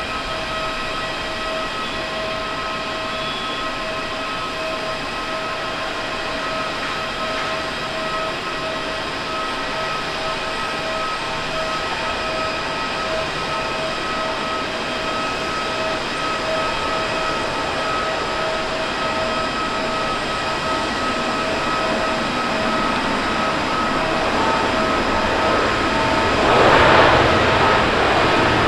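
Airbus A350-900 jet engines with a steady, high, multi-tone whine over a rushing noise as the airliner comes in to land and rolls out on the runway. The sound grows louder, and a broader, louder rush comes in near the end.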